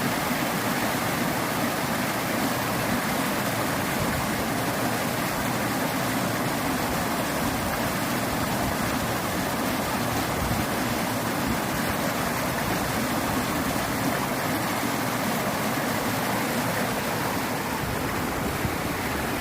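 Small waterfalls rushing: a steady, even wash of falling and running water.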